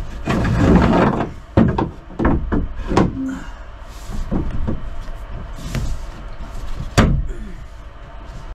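Knocks, bumps and scraping from someone working in a small fibreglass boat cabin, with a scraping rustle in the first second and sharp knocks about one and a half, two, three and seven seconds in.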